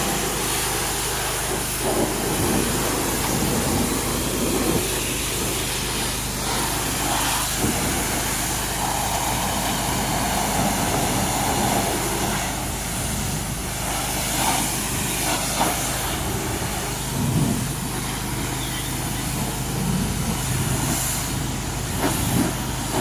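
Pressure washer spraying steadily against the truck's body, a constant hiss over the low, even hum of its motor.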